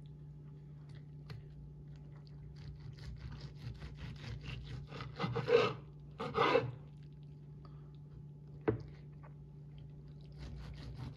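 A knife sawing back and forth through a crusty stuffed pork roast, the blade rasping on a wooden cutting board. The strokes build up a few seconds in and are loudest around the middle, and a single sharp knock comes near the end.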